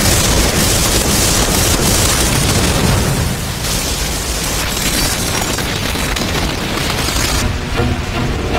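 Animated-battle sound effects of energy strikes raining down and exploding: a dense, continuous rumble of blasts. About seven and a half seconds in, the hiss on top drops away and a duller rumble remains.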